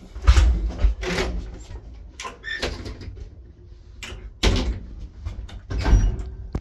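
The manual doors of an old IFMA traction lift being closed by hand: a string of knocks and clatters, with a sharp bang about four and a half seconds in as the wooden car doors are pushed shut, and another thud about six seconds in.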